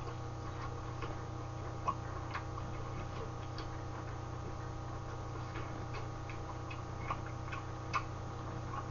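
Wet clicks and smacks of a man chewing a mouthful of braised chicken, coming at uneven intervals over a steady low hum.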